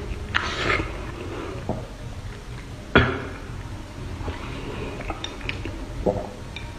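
Close-miked eating of spicy fire-chicken noodles: slurping and chewing, with chopsticks clicking against the bowl. One sharp knock about three seconds in is the loudest sound.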